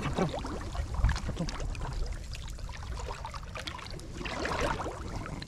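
Shallow paddy water splashing and dripping as a bamboo fish trap is lifted out and hands move through the water, in many small irregular splashes with a louder splash about four and a half seconds in, over a low rumble.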